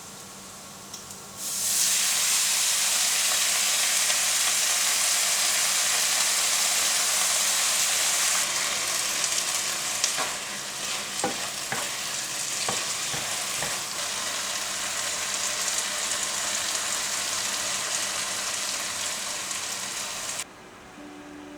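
Food sizzling in hot oil in a pan, starting suddenly about a second and a half in. It is loudest at first, then eases somewhat. A few sharp knocks come partway through, and the sizzle stops abruptly shortly before the end.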